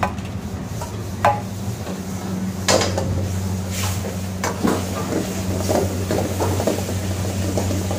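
Kitchen utensils and metal pans clattering and knocking several times over a steady low hum.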